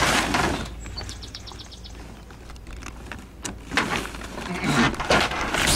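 Sailcloth rustling as it is handled at the mast. A short run of rapid ticking comes about a second in, and a sharp click about halfway, from the sail's fittings on the wooden mast hoops.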